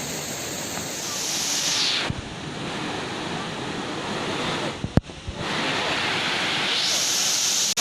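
Steady rush of falling water with wind buffeting the microphone, broken by a short cut about five seconds in.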